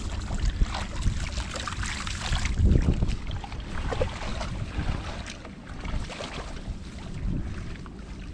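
Hands sloshing and splashing in shallow muddy water while groping for fish, with irregular wet splashes and wind rumbling on the microphone; the loudest splash comes a little under three seconds in.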